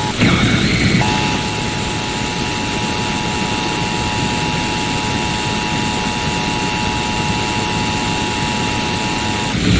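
Emergency Alert System attention signal: a steady two-tone alarm received over a radio under heavy static hiss, with a faint high whistle alongside. It starts about a second in, after a short noisy burst, and cuts off just before the end.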